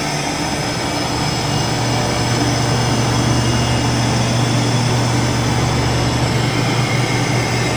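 Steady low hum and whir of running shop machinery, with a strong low drone and a few fainter steady tones above it, growing slightly louder as it goes.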